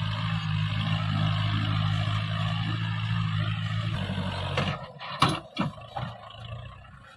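Kubota 45 DI tractor's direct-injection diesel engine running steadily under load, pulling an overloaded trailer of potato sacks through soft ploughed soil. About four seconds in, the engine note drops, then fades out, followed by a few sharp knocks.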